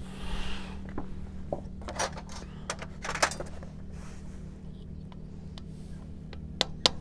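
Sharp clicks and knocks of metal hand tools as a thin screwdriver is picked out of a steel tool tray and put to the engine's rocker-arm pin. The two loudest clicks come close together near the end.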